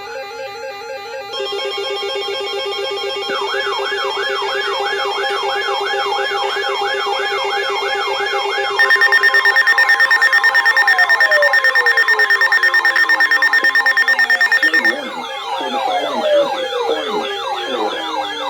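Electronic alarm and siren tones layered together: several steady tones, joined about three seconds in by a siren-like tone warbling up and down about three times a second. About halfway through, a louder pulsing set of tones comes in for some six seconds, then gives way to several falling sweeps like sirens winding down.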